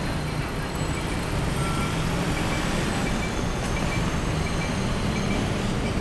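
Road traffic: cars passing with a steady low rumble, and a faint high beep repeating about twice a second.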